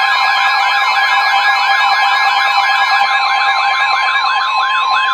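Emergency Alert System alert tone: two steady tones sounding together, with a fast warbling siren tone sweeping up and down about five times a second laid over them.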